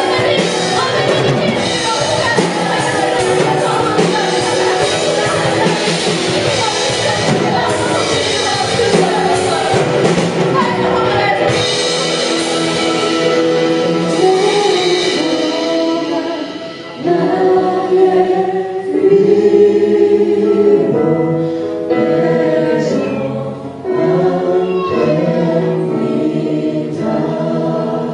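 Live worship music from a praise team: a full band with singers for the first half. Just past halfway the band thins out and the group singing carries on in long held notes.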